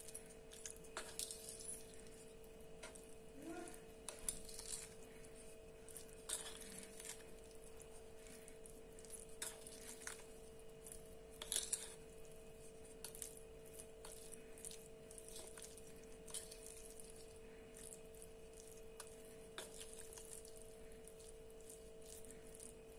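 Wooden spoon stirring oily, seasoned fusilli pasta in a glass bowl: faint, scattered scrapes and light taps of the spoon against the glass with soft squishing of the pasta. A faint steady hum lies underneath.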